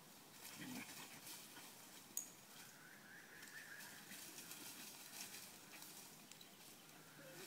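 Faint scampering and rustling of dogs' paws on a dirt track strewn with dry leaves and bark as they chase each other, with one sharp click about two seconds in.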